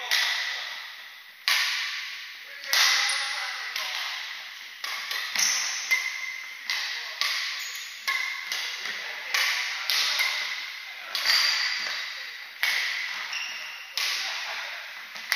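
Badminton rackets striking a shuttlecock in a rally, a sharp hit every half second to second and a half, each ringing on in the echo of a large hall.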